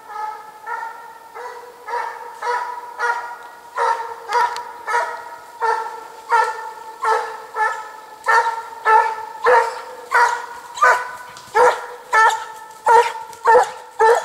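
Russian Piebald Hound giving tongue on a hare's trail: a steady run of short, ringing bays, about one and a half a second, growing louder as the hound closes in.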